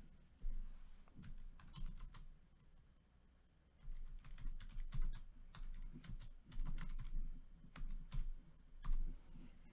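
Faint, irregular light clicks and taps from hands working at the table, with a pause of about a second near three seconds in and busier clicking after it.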